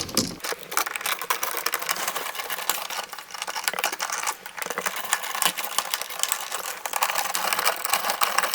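Flathead screwdriver tightening a terminal screw on a ceiling-fan wall switch: a dense, continuous run of small metal clicks and scrapes.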